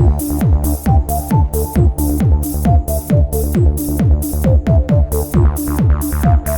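Electronic dance music with a steady kick drum and hi-hat beat, about two beats a second, under a short repeating synth melody.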